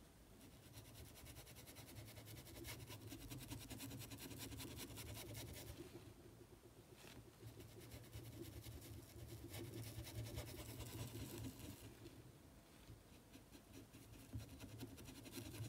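Faint scratching and brushing of a paintbrush worked in small circular strokes over fabric, dropping off briefly about six and about twelve seconds in.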